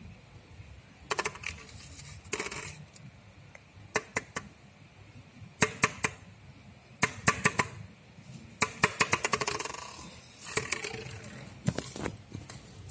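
Plastic water bottle knocking and rolling on a glazed tile floor as a kitten bats it. It comes in about eight separate bursts of quick clicks and knocks.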